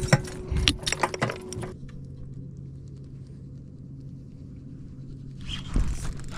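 Clattering clicks and rattles from handling on a bass boat deck for about the first second and a half. After that comes a low steady hum, and a rush of wind-like noise near the end.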